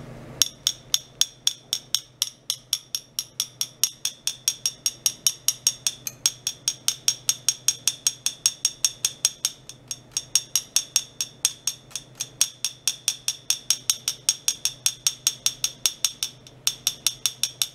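Rapid, even clicking, about four to five sharp ticks a second with a few brief breaks, over a steady low hum.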